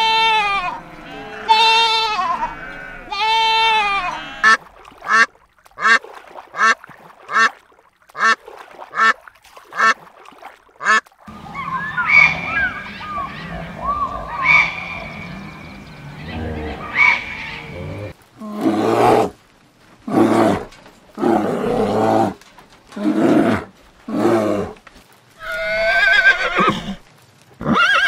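A goat kid bleating. Then a quick run of short, sharp animal calls, about two a second, and a stretch of softer chirping with gliding pitches. Near the end, a zebra calls in a series of repeated barking brays, about one a second.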